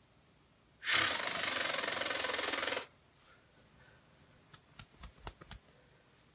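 A plush toy rubbing against the device's microphone: a loud scratchy rustle for about two seconds, starting about a second in. It is followed by a quick run of six or seven light taps a little after the midpoint.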